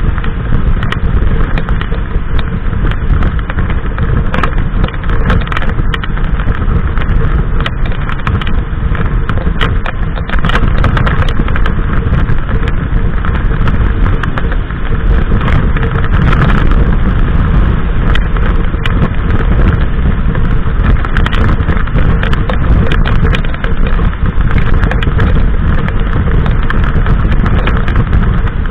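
Wind rushing over the microphone of a camera on a Harley-Davidson Sportster at motorway speed, with the motorcycle's V-twin engine running steadily underneath.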